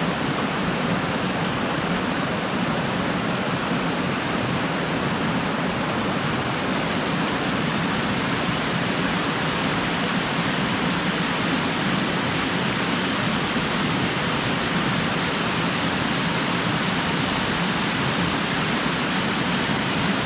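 Small mountain waterfall splashing steadily into its pool, a constant rushing hiss of falling water with a low churning underneath.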